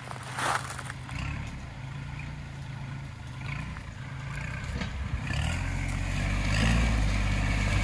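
Kubota L4018 tractor's diesel engine running steadily, growing clearly louder over the last two seconds or so.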